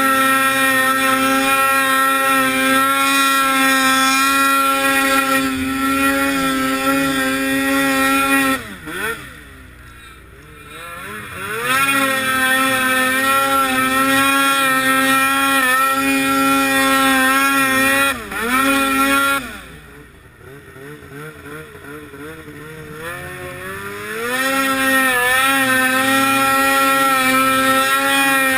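Snowmobile engine running under way at high, steady revs. The throttle comes off about 8 s in and again about 19 s in: the pitch falls and the engine drops to a low drone, then revs back up a few seconds later each time.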